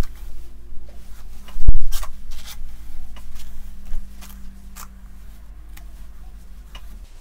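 Plastic detangling brush stroked down a straight synthetic wig, a run of quick scratchy brushing strokes that thin out after about five seconds. A single loud knock comes about two seconds in, and a steady low hum runs underneath.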